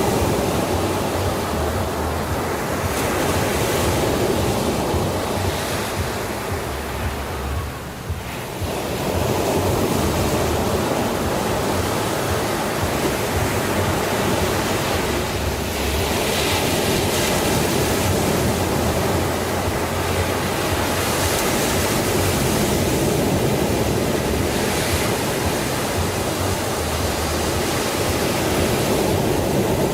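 Sea surf: waves washing in continuously, dropping briefly about eight seconds in, then swelling again with brighter hissing washes.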